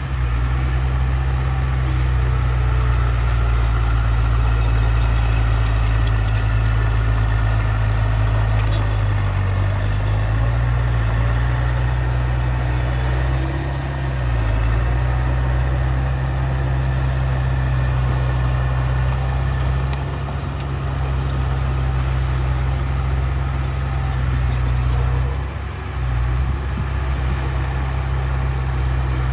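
Diesel engine of a Komatsu D31P crawler bulldozer running steadily with a deep hum, easing off briefly a few times.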